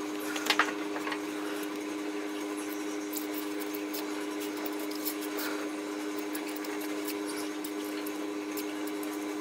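A new clutch master cylinder being bench-primed by hand, its pushrod pumped to force brake fluid through: light clicks and ticks, with a couple of sharper clicks about half a second in. A steady two-tone hum runs underneath.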